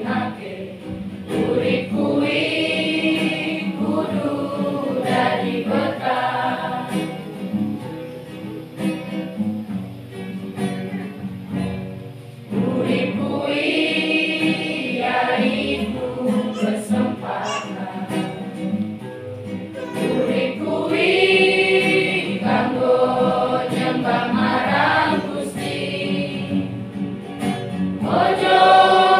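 A children's and teenagers' church choir singing a Christian song together, with a softer passage that grows louder again about halfway through.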